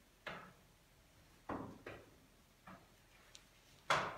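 A child's footsteps going up a staircase: a handful of separate, uneven steps, the loudest one near the end.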